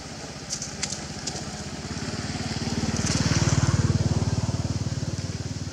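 A motorcycle engine running as it passes, growing louder to a peak about three to four seconds in, then fading.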